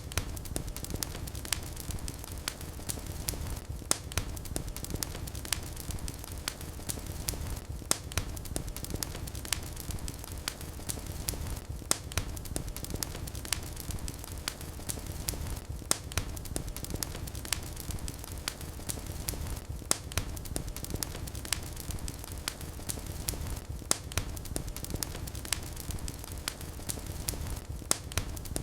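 Wood fire burning in a fireplace: a steady low rumble of flames with constant crackling and sharp pops, the loudest pops coming about every four seconds.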